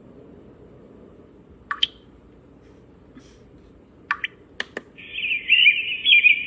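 A white noise machine's speaker playing a recorded birdsong track: a few isolated chirps, then from about five seconds in continuous high-pitched bird chirping.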